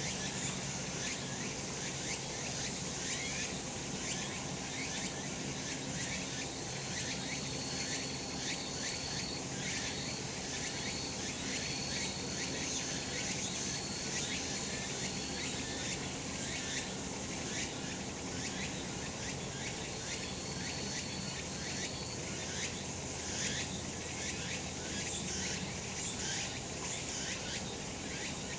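Cicadas singing in a dense, unbroken chorus with a fast, scratchy pulsing. A thin high tone comes and goes a few times in the middle.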